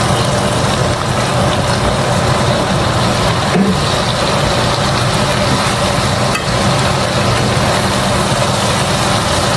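Steady, loud rushing noise with a low hum from stovetop cooking while vegetables and meat stir-fry in the pan.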